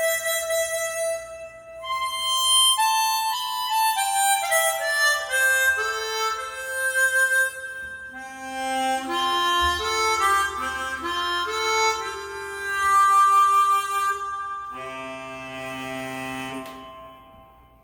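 Psardo Elite custom chromatic harmonica playing a melodic phrase, amplified through a studio sound system. The line steps downward into the instrument's low register, then ends on a held chord that fades out.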